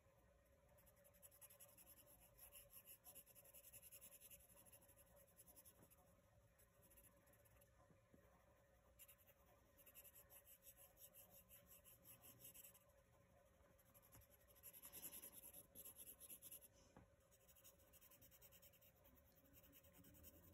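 Faint scratching of a wooden graphite pencil shading on paper with the chiseled edge of its lead, in stretches of quick back-and-forth strokes, loudest about fifteen seconds in.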